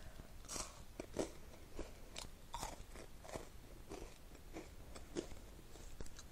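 Frozen Kit Kat being chewed: a run of short, crisp crunches, about one or two a second.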